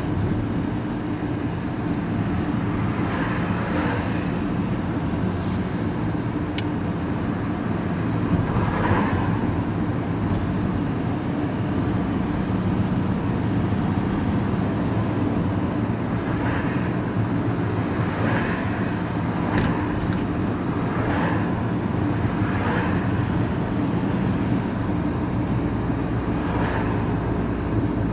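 Vehicle engine running steadily while driving, heard from inside the cab as a continuous low drone with road noise.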